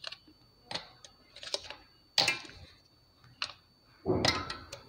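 Ice cubes dropped one at a time into liquid in a stainless-steel mixer-grinder jar, making about six separate clinks and plops. The last, near the end, is the longest and loudest.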